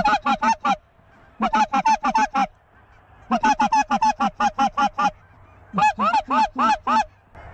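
Hand-held goose call blown in quick runs of short, clipped honks and clucks, about six a second, in four bursts with short pauses between them, calling circling geese toward the decoys.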